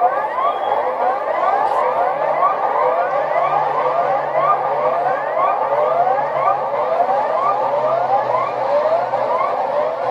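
Emergency alert siren tone made of quickly repeating rising sweeps that overlap into a continuous warbling wail, over a faint low hum.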